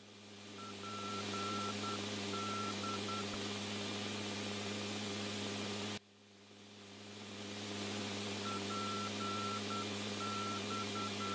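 Steady radio hiss over a low electrical hum, with a string of short and long beeps at one pitch, once about half a second in and again from about eight seconds. The sound cuts out suddenly near the middle and fades back in.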